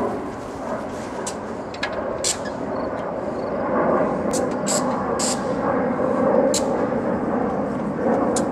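EMD SD70ACe diesel locomotive's two-stroke V16 engine running steadily at close range, growing louder about four seconds in, with several short sharp clicks over it.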